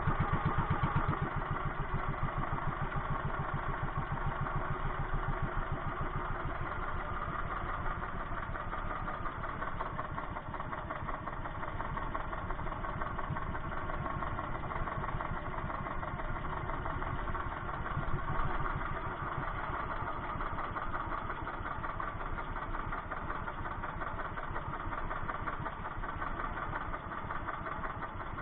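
A mid-sized engine running steadily at an even speed, a little louder for the first second or so.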